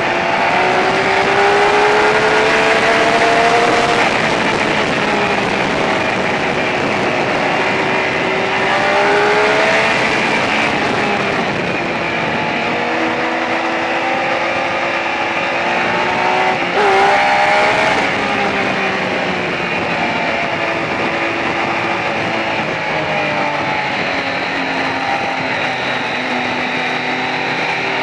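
Triumph Speed Triple's 1050 cc three-cylinder engine running hard at road speed, rising in pitch as it accelerates and falling back between pulls, over a constant rush of wind. A short, sharp rev blip comes a little past halfway.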